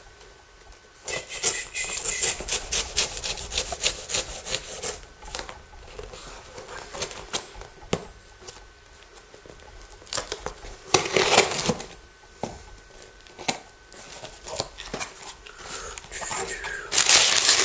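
Kitchen knife slitting the packing tape along a cardboard box's seams: a rapid run of scratchy rasping strokes, then scattered scrapes. About eleven seconds in there is a loud tearing rasp. Near the end, louder rustling as the flaps are pulled back over the crumpled brown packing paper inside.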